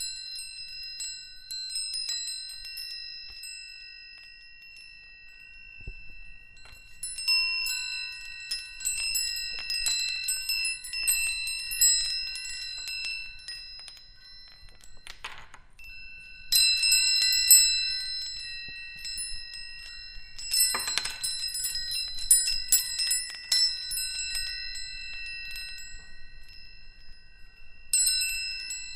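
Metal chimes ringing: irregular clusters of quick strikes set the same few high tones ringing on between them, with a short pause about halfway through.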